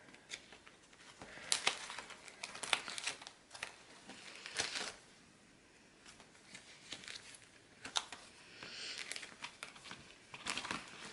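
Sticker sheets and their packaging crinkling and rustling as they are handled and sorted by hand, in irregular bursts with a quieter pause about halfway through.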